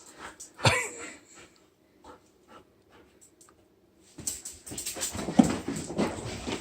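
A dog panting and whimpering, among scattered short clicks and shuffles. The sounds grow busier and louder from about four seconds in.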